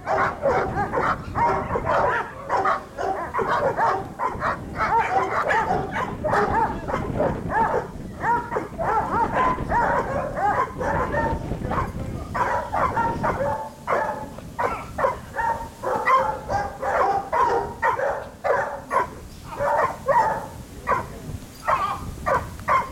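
A dog barking over and over, the barks following one another closely throughout. It is a dog in protection training barking at a decoy with a bite sleeve.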